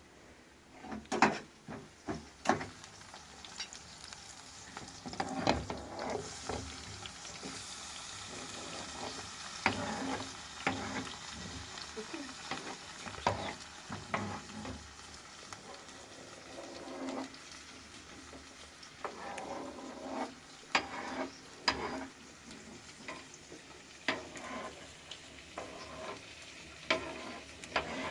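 Food frying in a cooking pot with a steady sizzle, while a spoon knocks and scrapes against the pot many times as it is stirred.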